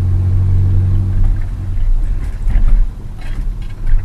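Golf GTI Mk4's 1.8 20-valve turbo four-cylinder engine under way, a steady deep drone that eases off about a second and a half in. A few short bursts of noise follow near the end as the engine note drops.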